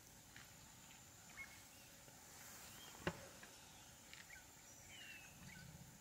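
Faint bush ambience with a steady high insect whine and a few short bird chirps. About three seconds in comes one sharp snap. Near the end there is a soft low rustle of vegetation from the grazing elephants.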